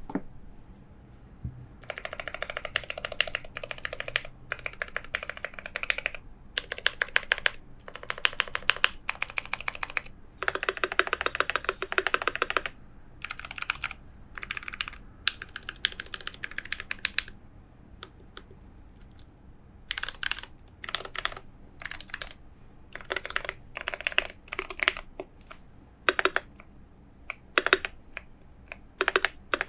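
Typing on a GMMK Pro mechanical keyboard with a brass plate, hand-lubed Zealios V2 tactile switches and ePBT keycaps, its case dampened with foam and a tape mod. Fast runs of keystrokes come in bursts, then after a pause about two-thirds through come separate single presses and short runs.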